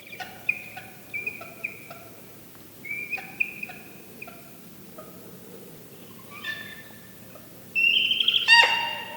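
Barred owl giving distraction calls: a run of short, high squeals, then a louder, longer harsh call near the end, the honk. These are the calls an adult barred owl gives to draw an intruder away from its young.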